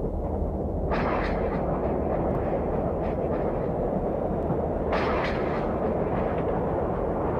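Subway train running, heard from inside the passenger car: a steady low rumble of wheels on track. The noise grows brighter and harsher about a second in and again about five seconds in.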